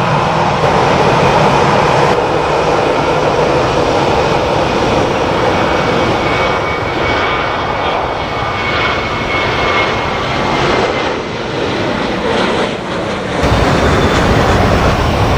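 Airbus A321 airliner's CFM56 jet engines running as it rolls past on the ground after landing: a steady rushing noise with a faint high whine. Near the end the sound changes abruptly to a deeper rumble.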